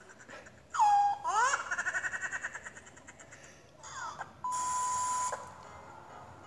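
A high-pitched comic laughter sound effect. It opens with a sharp falling squeal, then breaks into rapid pulsed giggling for a couple of seconds. Later a steady beep sounds for about a second.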